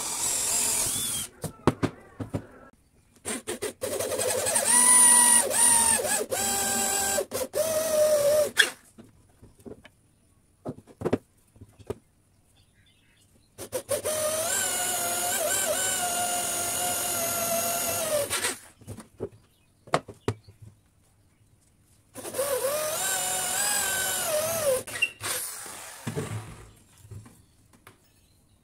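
Electric drill boring holes through hardwood: a short run at the start, then three runs of about five seconds each of a steady motor whine under load. Brief knocks of handling fall in the near-silent gaps.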